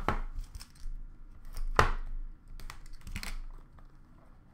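A cardboard hockey card box being handled and opened by hand: several sharp clicks and knocks of cardboard, with light rustling between, the loudest knock about two seconds in.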